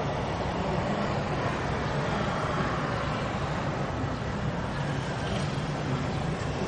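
Steady low rumble of distant city road traffic.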